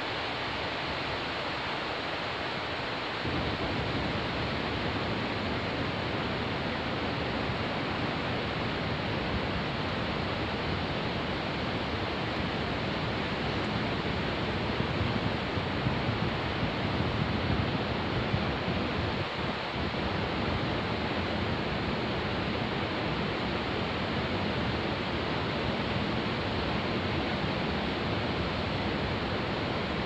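Caspian Sea surf: a steady rushing wash of waves, a little louder about halfway through.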